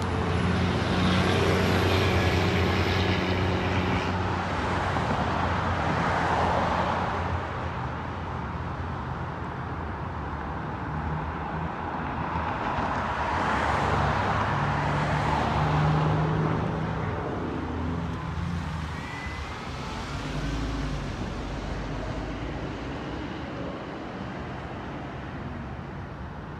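Road traffic at a street intersection: car engines running, with vehicles passing in swells that rise and fall. The loudest passes come a few seconds in and again about halfway.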